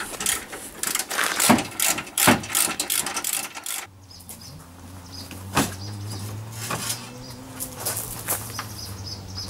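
Quick metal clicks and clanks of tools on the UAZ Patriot's front-bumper fastenings, worked from underneath. About four seconds in this gives way to a steady low hum with faint high chirps and a few knocks as the bumper is pulled loose.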